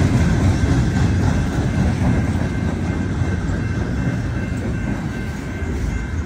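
Freight train of loaded flatcars rolling past close by, steel wheels running on the rails in a steady, heavy noise that eases slightly toward the end.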